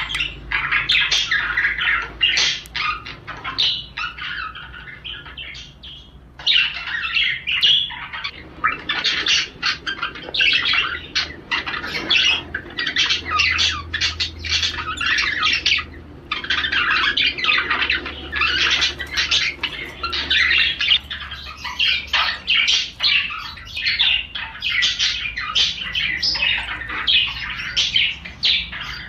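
Male budgerigar warbling: a fast, continuous run of squawky chirps and chatter, with short breaks about six and sixteen seconds in. It is the male's courtship warble, used to get budgies in the mood to breed.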